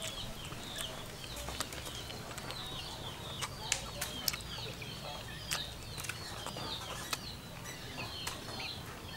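Birds chirping: short, high, falling chirps repeated many times, with sharp clicks here and there.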